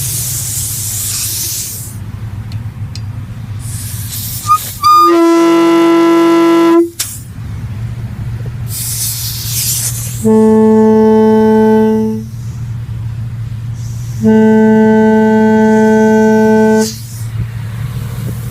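Salvaged Hadley and Grover truck air horns blown on low pressure from a gas-station air pump. There are three steady blasts: a short higher-pitched one about five seconds in, then two longer, lower ones. Bursts of air hiss from the hose come between the blasts over a steady low hum.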